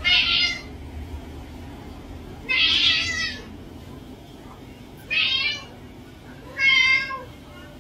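Domestic cats meowing: four separate calls, each under a second long, spaced about two seconds apart.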